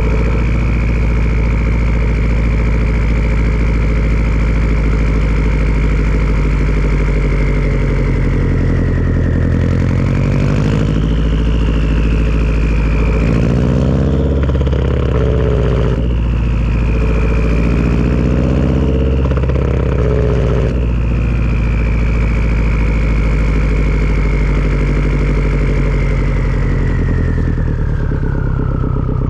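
Turbocharged Subaru flat-four with a Tomei turbo-back exhaust running, its turbo giving a high whistle over the engine's rumble. The whistle holds steady, rises and wavers through the middle, then falls in pitch near the end.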